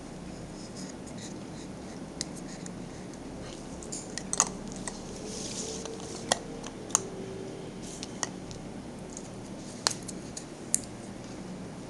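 Cosmetic powder jars and their screw caps clicking and tapping as they are opened, handled and set down on a table: scattered sharp clicks, the loudest about four seconds in.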